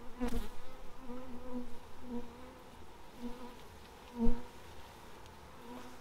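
Honey bees buzzing around an opened hive, single bees passing close by so the buzz swells and fades over and over; the colony is stirred up by the inspection. A short knock just after the start and a louder knock about four seconds in.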